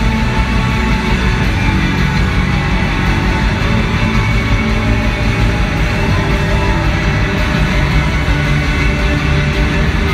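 Instrumental post-rock band playing live: loud, dense electric guitars over bass and drums, steady throughout, heard from within the crowd.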